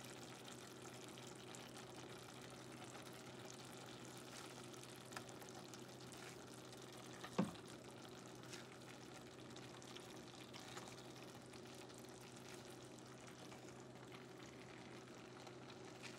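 Faint, steady simmering of a firfir sauce in a saucepan on low heat, over a low steady hum. A few small ticks, and one short knock about seven seconds in.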